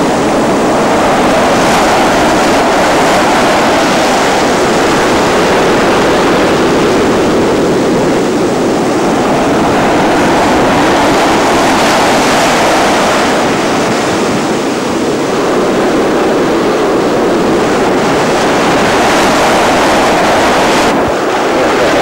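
Sea surf washing and breaking, a steady rushing noise that swells and eases every few seconds.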